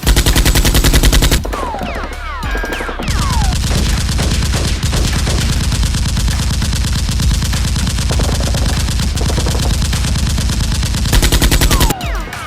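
Rapid automatic gunfire sound effects: long bursts of machine-gun fire, loudest at the start and again near the end, with a few falling whistle-like tones just after the first burst.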